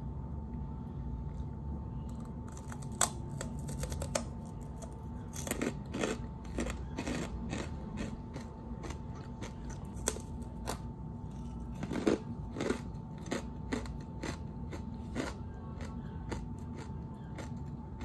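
Crisp pork cracklings (chicharon) crunching as they are broken and eaten close to the microphone: a rapid, irregular run of sharp crunches and crackles.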